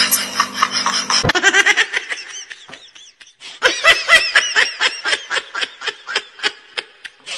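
Human laughter in short, rapid repeated bursts, breaking off for about a second partway through and then running on at about four laughs a second.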